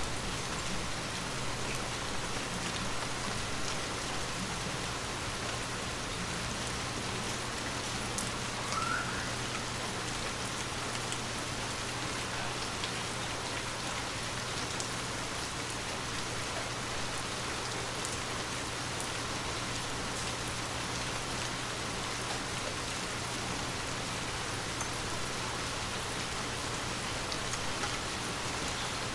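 Gentle, steady rain falling on a window, with scattered individual drop ticks over an even hiss.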